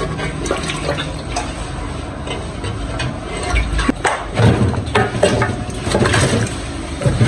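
Water sloshing and splashing in a pot as a hand swirls and rinses it, then raw meat pieces tipped wetly into the water. A low hum joins about four seconds in.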